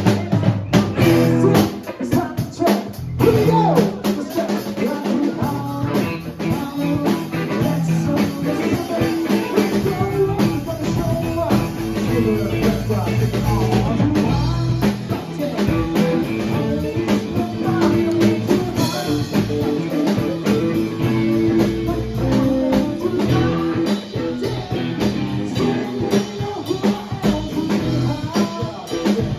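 Live rock band playing with a drum kit keeping a steady beat, guitar, bass and a singer.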